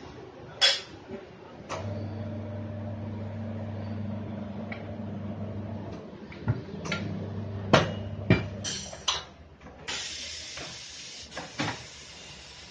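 Tyre-changing work: sharp metal clanks and knocks, a steady low machine hum for several seconds, then a steady hiss starting about ten seconds in.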